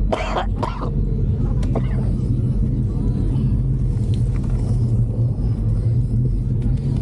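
Steady low rumble of wind on the microphone and tyres rolling while riding a bike, with a brief bit of voices in the first second.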